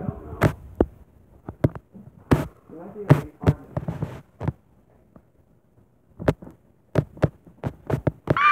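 Irregular clicks and soft thumps from the phone being handled, with faint low murmurs in between and a quiet gap of about two seconds in the middle. Right at the end a small dog begins a howl that falls in pitch.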